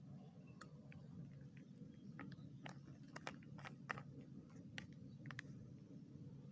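Faint, irregular short clicks and ticks, several a second at their busiest, over a low steady background hum.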